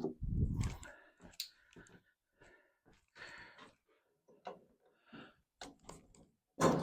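Scattered clicks and light knocks of parts being worked loose by hand as a tractor's air filter is taken out, with a short low rumble at the very start.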